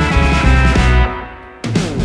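Background rock music with guitar and a steady beat; it drops away about a second in and comes back in sharply shortly before the end.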